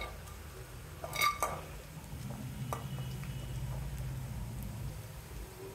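Spatula knocking and scraping against a stainless steel pan while fried raw banana pieces are stirred and lifted out of the oil, with two ringing clinks in the first second and a half, followed by a steady low hum.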